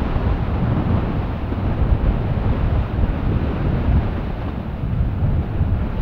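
Erupting lava fountains: a steady deep rumble and rushing noise, with wind noise on the microphone.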